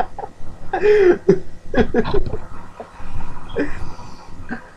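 A person's voice making short non-speech vocal sounds, like coughs or grunts, with a few sharp clicks or knocks about two seconds in.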